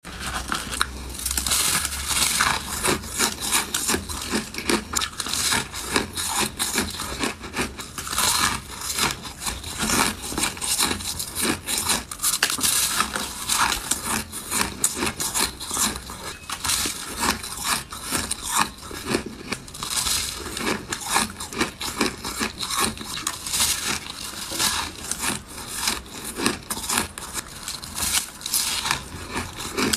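Close-miked crunching of a packed block of shaved ice being bitten and chewed: a dense, continuous crackle of many small crunches.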